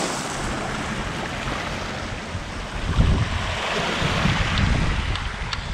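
Small waves washing onto a pebble beach under a steady hiss of wind, with gusts buffeting the microphone from about three seconds in.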